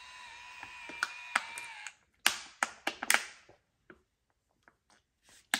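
Motor of a Beach Waver rotating curling iron whining steadily as it turns the barrel to wind the hair, stopping suddenly about two seconds in. A few loud, sharp crackles and clicks follow.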